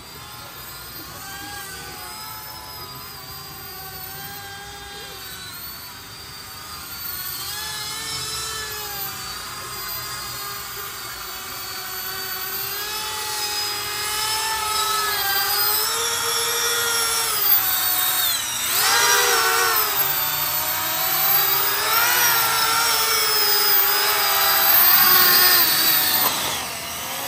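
The four 70 mm electric ducted fans of a 3D-printed quad drone in flight: several overlapping high whines that rise and fall in pitch as the thrust changes. They grow steadily louder as the drone comes down close to land, and drop off at the very end.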